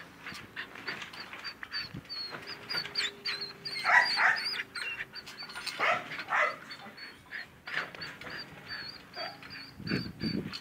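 Belgian Malinois puppy whimpering and yipping as it climbs an aluminium ladder, with two louder cries partway through and scattered light clicks.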